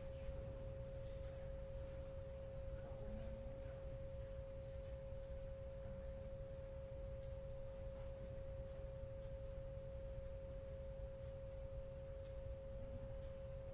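A steady, unbroken pure tone, an electrical whine, over a low steady hum of room noise.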